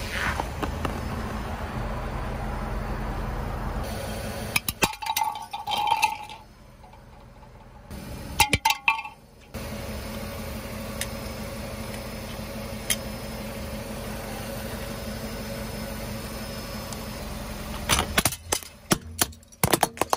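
Car tyre rolling onto brittle Halloween toys and crushing them, with the car's engine running low underneath. There are clusters of sharp cracking and snapping about five seconds in and again around eight seconds, then a quick run of cracks near the end as a plastic skeleton grabber toy breaks apart.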